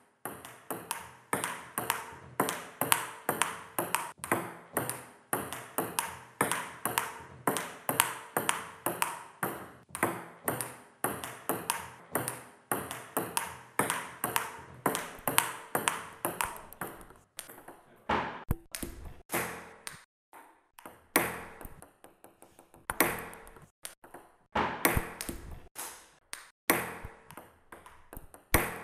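Table tennis ball in a rally, sharp clicking hits about two a second, each with a short ringing tail. After about 17 seconds the hits become sparser and irregular.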